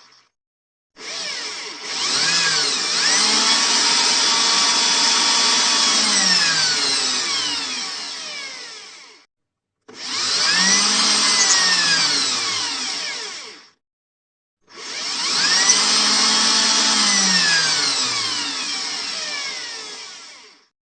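Electric drill run three times, the longest first: each time the motor's pitch rises as it spins up, holds steady, then falls as it winds down, with short silences between the runs.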